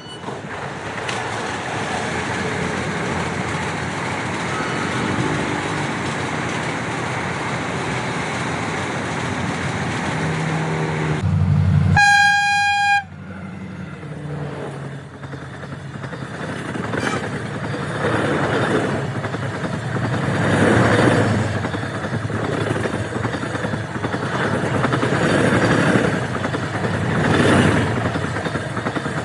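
Indian Railways train running past with a steady rumble, then one loud horn blast about twelve seconds in that cuts off suddenly. After it the wheels clatter over rail joints in a regular rhythm.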